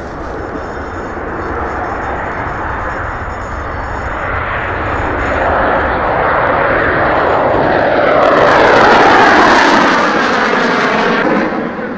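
Panavia Tornado GR4 taking off on afterburner, its twin RB199 turbofans making loud jet noise. The noise builds steadily and peaks about three-quarters of the way through, with a sweeping, whooshing shift in tone as the jet passes. It then falls off sharply near the end.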